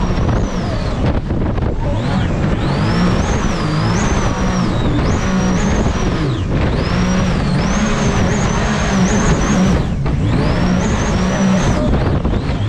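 Supercharged mini jet boat engine running hard, its high supercharger whine rising and falling as the throttle is eased off and back on several times.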